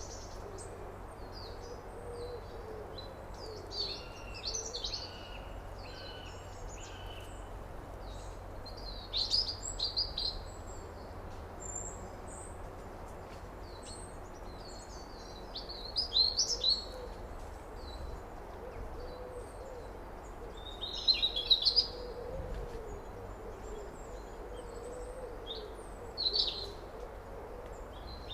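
Outdoor summer ambience: small birds chirping in short bursts every few seconds, with a low hooting call repeating softly in the background over a steady faint hiss.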